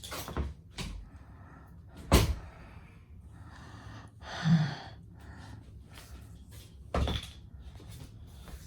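Three sharp knocks, the loudest about two seconds in and the last near the end, with a short voice-like sound in between, like objects being handled or set down.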